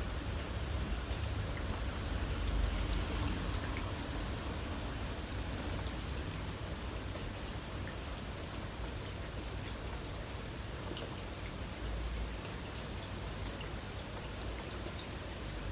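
Light rain falling, with scattered small drips, over a steady high-pitched insect trill and a low rumble underneath.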